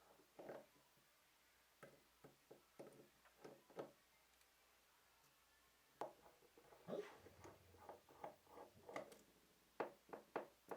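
Faint small clicks and light taps of tools and metal parts handled on a Nikon FM2n camera body as its bayonet lens mount is removed, a few at first and more frequent in the second half.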